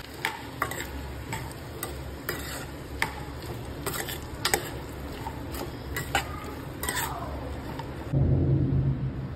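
Spatula stirring cubed potatoes in a non-stick pan: irregular clicks and scrapes of the utensil against the pan over a light steady sizzle. A louder low rumble comes in for about the last second.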